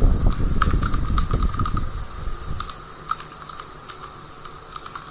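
Computer keyboard typing: a quick run of key clicks. A low rumble runs under it for the first two seconds, with a steady faint hum throughout.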